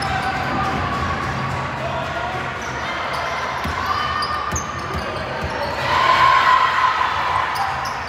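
Basketball dribbling and bouncing on a gym court, with players and spectators calling out; the voices get louder about six seconds in.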